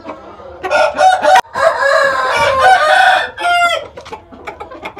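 Gamefowl rooster crowing once: a loud crow of about two and a half seconds starting just under a second in, with a brief break near its start, ending in a short quavering note.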